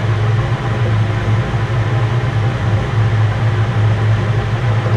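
Milling machine running steadily with a dovetail cutter turning at about 600 RPM, giving a steady low hum.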